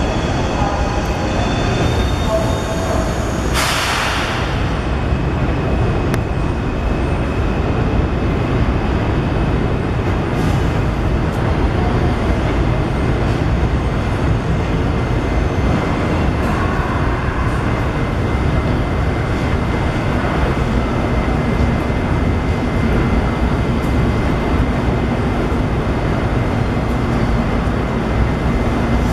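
NYC subway train rolling slowly through the terminal yard: a steady rumble with faint squeal of wheels on the curved track. A short, sharp hiss of air comes about four seconds in.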